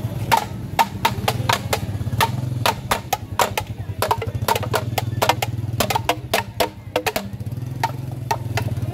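Sharp, irregular clacking percussion, several knocks a second and some in quick doubles, over the steady low hum of a motor scooter engine moving at walking pace.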